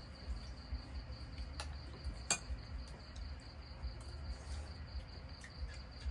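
Insects chirring steadily in a thin, high tone, over a low rumble, with two sharp clicks a little under a second apart around two seconds in.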